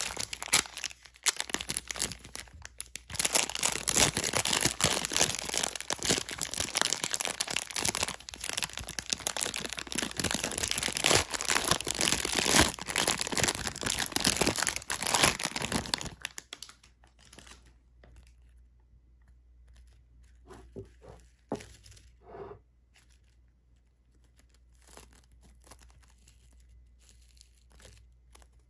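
Clear plastic bag of small foam beads crinkled and squeezed by hand, a dense crackling with the beads rustling inside. It stops about halfway through, leaving only a few faint soft clicks and pats.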